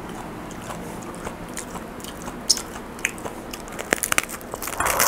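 A man biting into and chewing a big loaded BLT sandwich stacked with bacon and a sausage patty: crisp crunches and wet chewing clicks, getting busier and louder toward the end.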